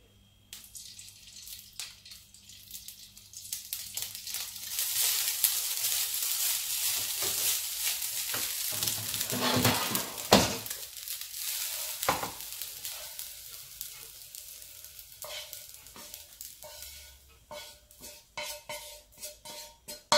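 Vegetable fried rice sizzling in hot oil in a non-stick frying pan, stirred with a wooden spatula. The sizzle builds about five seconds in, is strongest over the next few seconds, then dies down, with scrapes and light knocks of the spatula and pans throughout.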